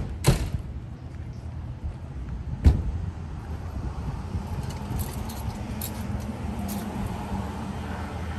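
Street traffic: cars driving past with a low engine rumble that swells over the last few seconds, and three sharp knocks in the first three seconds.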